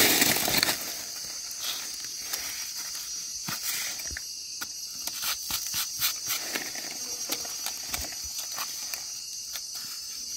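A steady high-pitched insect chorus, with faint scrapes and ticks of a knife trimming soil from the stem of a freshly picked wild mushroom; a brief rustle at the start.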